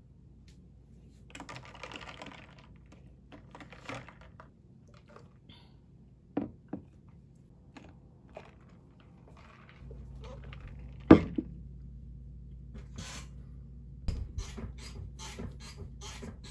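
Handling noises of a plastic iced-coffee cup: a short rustle, then a pair of plastic clicks as its lid goes on. After a change in background hum, a single sharp click, the loudest sound, is followed near the end by a quick run of light clicks and taps.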